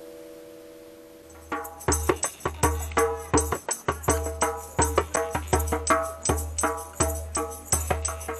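Ringing pitched notes die away. About a second and a half in, a fast percussion rhythm begins, several strikes a second, each strike carrying a short pitched ring.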